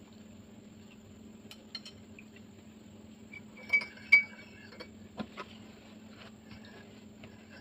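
A metal spoon clinking twice against a cup of milk about four seconds in, with a few fainter taps and knocks after it.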